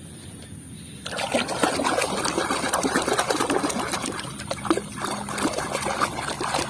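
Water splashing and trickling, with small knocks, as a muddy plastic toy is rubbed clean by hand in a basin of water; it starts about a second in.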